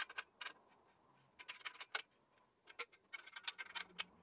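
Faint, irregular metal clicks and taps of an 8mm Allen key working the clamp bolt of a chrome exhaust tip as it is tightened onto the tailpipe, with a small cluster of clicks near the end.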